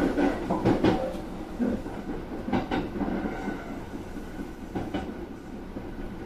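Kintetsu Urban Liner plus (21000 series) electric express running at speed, heard from inside the front car: a steady rumble, with pairs of wheel clicks over rail joints about every two seconds.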